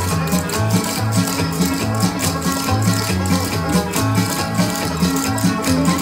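Recorded music with a bass line and plucked strings, over the quick, dense clicking of cloggers' metal shoe taps striking the floor in rhythm.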